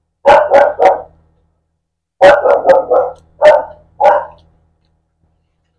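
A dog barking in two bouts: three quick barks, then a second run of about five barks from about two seconds in.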